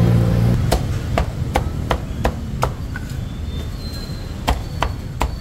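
Cleaver chopping a roasted duck on a chopping block: sharp single chops about two or three a second, with a pause of nearly two seconds midway. A low engine hum is heard in the first half second before the chopping starts.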